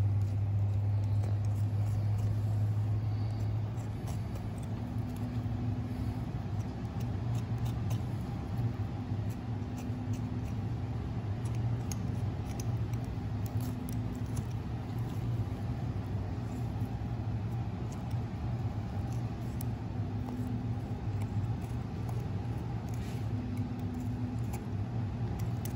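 A steady low machine hum, with faint small clicks and scrapes of a knife cutting meat away from deer ear cartilage.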